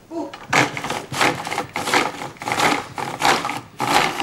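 Hand-cranked ice cream freezer being turned: a steady, rhythmic churning scrape, about three strokes every two seconds, as the crank drives the dasher through the cream in its tub of ice.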